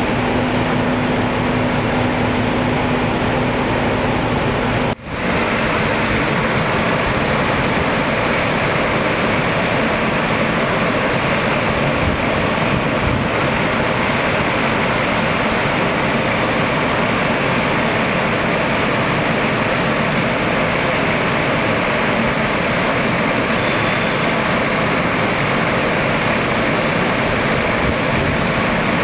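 Steady, loud engine and machinery noise running without pause, heard as a dense rushing hiss. A steady hum sits over it at first, until a brief dropout about five seconds in.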